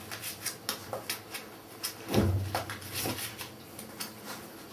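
Border collie puppies tussling and scrambling, a string of small knocks, scrapes and rattles with one heavier thump about two seconds in.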